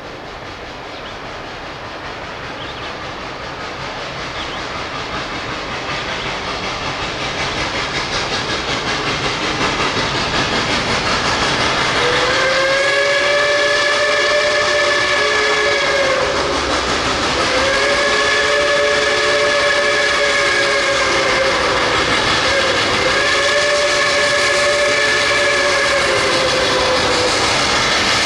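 Reading & Northern steam locomotive No. 425 approaching, its running noise growing steadily louder, then its whistle blowing three long blasts of several notes at once, each about four seconds long.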